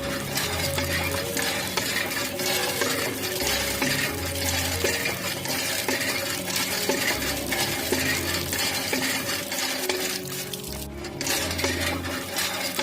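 Background music with a deep bass note repeating about every two seconds, over a dense scratchy, clicking noise.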